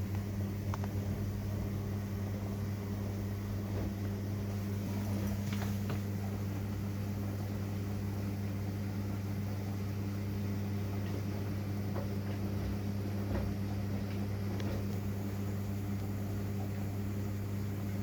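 Samsung WW80CGC04DABEP front-loading washing machine running, a steady low electrical hum with a few faint clicks scattered through it.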